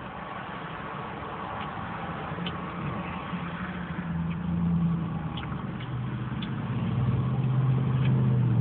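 A car engine running close by, getting steadily louder, its hum settling to a lower pitch about six seconds in.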